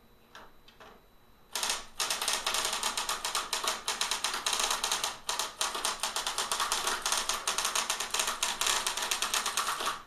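Smith Corona electric typewriter being typed on fast: a dense run of sharp mechanical clacks, several a second, starting about a second and a half in, with a brief pause near the middle.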